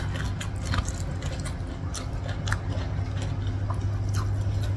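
A person chewing food close to the microphone, with scattered sharp wet mouth clicks and smacks, over a steady low hum.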